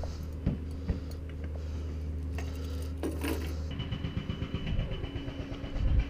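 A vehicle engine running with a steady low hum, with a few sharp clicks and knocks around an open pickup tailgate. A little over halfway in, the hum gives way to a rougher, uneven rumble with a thin high tone over it, growing louder toward the end.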